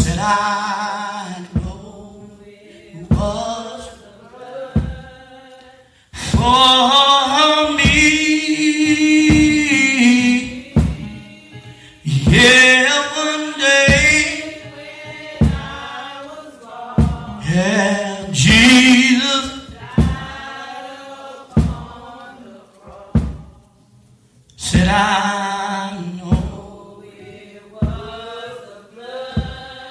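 Male preacher's sung, chanted sermon climax ("whooping"), delivered in long held, pitched phrases. Short low thumps punctuate the phrases.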